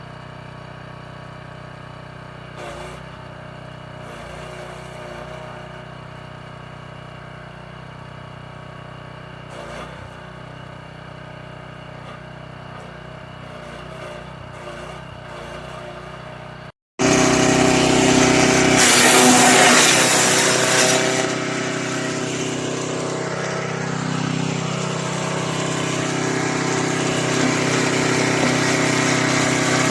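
Wood chipper's 6 hp petrol engine running steadily. After a short break about halfway through, it comes in much louder and rougher.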